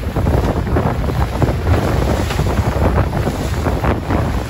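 Wind buffeting the microphone over the rush of water and wake from a fast-moving boat, with the outboard motor running underneath; a loud, ragged, gusting noise throughout.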